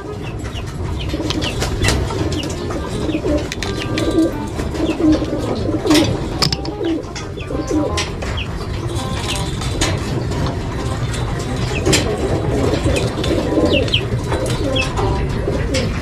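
Domestic pigeons cooing again and again, with scattered sharp metallic clicks from steel wire mesh being handled and bent, over a steady low rumble.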